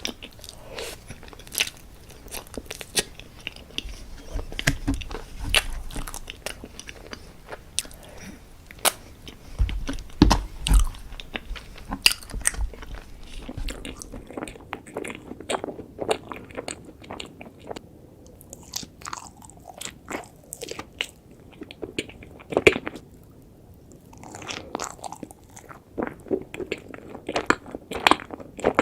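Close-miked mukbang eating sounds: profiteroles being bitten and chewed, a dense, irregular run of sharp mouth clicks with a few heavier bites around a third of the way in.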